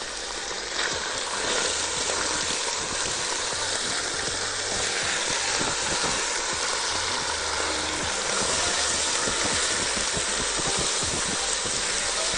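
Chicken breast strips sizzling as they hit hot sesame oil in a pan and are stirred. The sizzle swells about a second and a half in, then holds steady.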